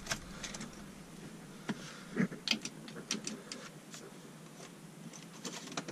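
Scattered faint clicks and taps of the ignition key and switch being worked in a Nissan 240SX; the engine does not crank, because the battery is dead.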